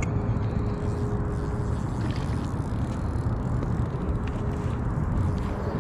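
Steady low outdoor rumble, with a faint steady hum that comes and goes and a couple of light clicks.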